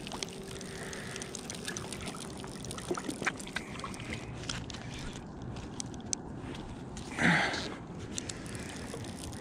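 A fly reel being wound in close to the microphone while playing a fish: irregular light clicks and glove handling noise, with a brief louder rush of noise about seven seconds in.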